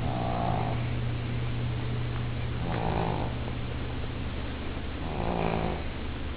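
A sleeping pet snoring, with three snores about two and a half seconds apart, over a steady low hum.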